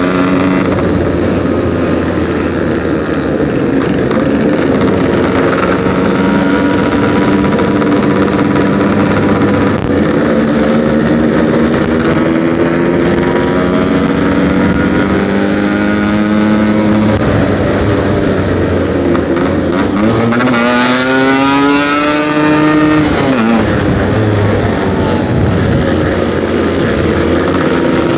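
Yamaha RX-King 135cc two-stroke single-cylinder motorcycle engine running under way through a packing-type aftermarket exhaust, its pitch climbing and falling with the throttle. About twenty seconds in it revs up sharply, holds, then drops back.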